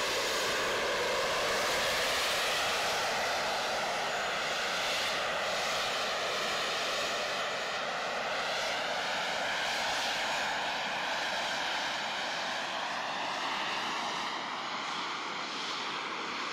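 Jet suit's small turbine engines running at full thrust in flight: a steady jet roar whose tone slowly sweeps and phases as the pilot moves, fading a little near the end as it flies away.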